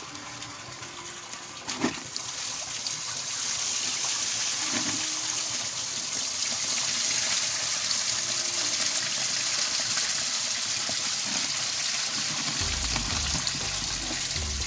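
Water pouring steadily into a tarpaulin fish pond, swelling to a full, even rush about two seconds in, with a couple of light knocks. A low rumble joins near the end.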